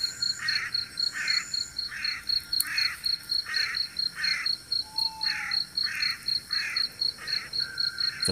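Night insects chirping in steady rhythm: a high, even pulse about three times a second over a lower rasping chirp repeating roughly every two-thirds of a second. A short falling whistle sounds once about five seconds in.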